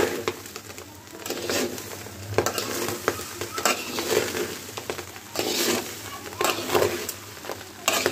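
Metal spoon stirring and scraping rice, lentils and meat in a hot metal pot, in irregular strokes about once a second, with frying sizzle underneath.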